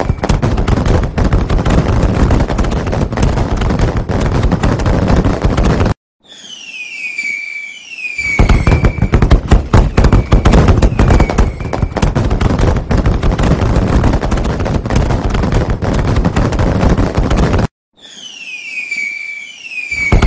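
Dense, loud crackling of fireworks. It cuts off suddenly twice, about six seconds in and again near the end, and each time there are a couple of seconds of falling whistles that level off into a held tone before the crackling starts again.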